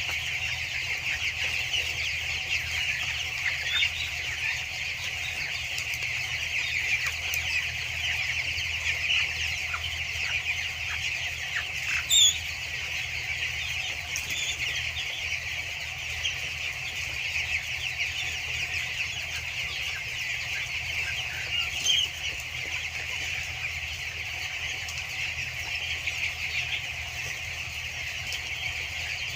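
A large flock of two-week-old broiler chicks peeping and chirping in a dense, steady chatter, with a few single louder calls standing out, one near the middle and another about two-thirds through. A steady low hum runs underneath.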